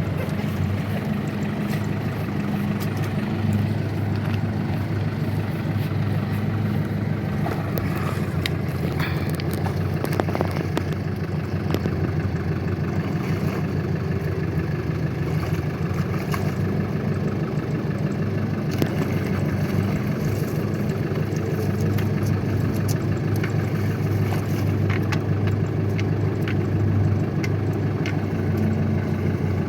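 Farm tractor's diesel engine running steadily at a constant speed, with a few scattered knocks.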